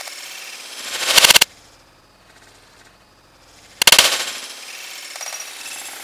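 A spade slamming into a smashed plastic-cased portable TV twice, each blow a loud crash of cracking plastic and glass. Between the blows the spade scrapes and grinds on the broken casing.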